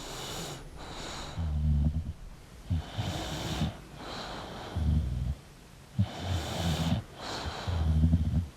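English bulldog snoring in its sleep: a series of rough, low snores every one and a half to three seconds, with hissing breaths between them.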